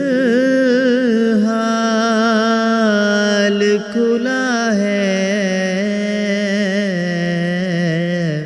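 A man reciting an Urdu naat unaccompanied, drawing out one syllable in a long, ornamented melisma with a wavering pitch. There is a short break in the voice about four seconds in.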